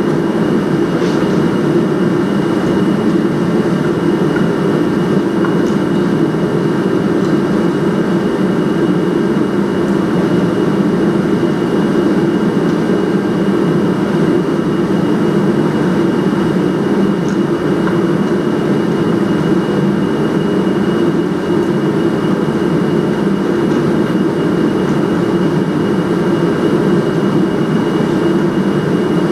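A shop heater running with a loud, steady hum and a faint high steady whine over it.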